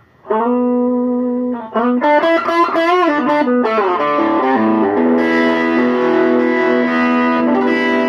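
Blues lead guitar on a Donner semi-hollow electric guitar through a Monoprice 5-watt Stage Right tube amp, driven by a TS-808 Tube Screamer reissue overdrive pedal. A note rings out about a quarter-second in, then a quick run of bent notes follows, then long sustained notes ring to the end.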